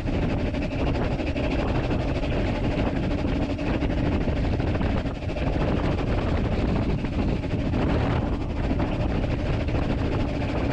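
Narrow-gauge steam locomotive Talyllyn No.3 'Sir Haydn' under way, heard from the footplate: a steady rumble and clatter of the engine and its wheels on the rails.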